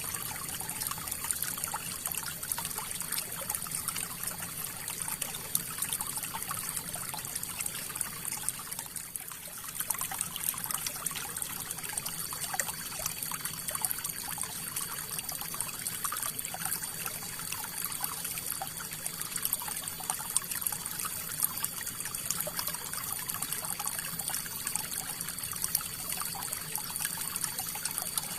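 River water flowing steadily, a continuous rush full of small splashes, easing off briefly about nine seconds in.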